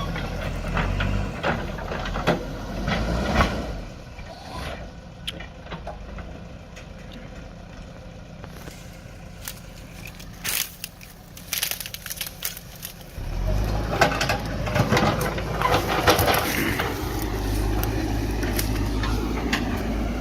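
JCB backhoe loader's diesel engine working, falling away for several seconds while scattered sharp cracks and snaps sound, then working loud again for the last third.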